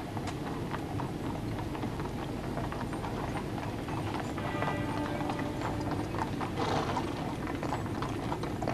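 Hooves of the horse team drawing a gun carriage, clip-clopping slowly and irregularly on the road. A brief ringing tone sounds about four seconds in.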